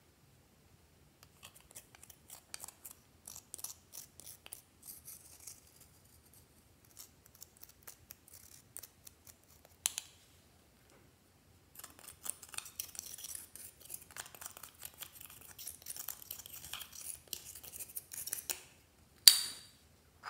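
A thin metal tool scraping and crumbling pressed eyeshadow in a plastic compact: runs of crisp, scratchy little clicks and crunches. There is a sharp click just before the middle, and near the end one sharp knock that is the loudest sound.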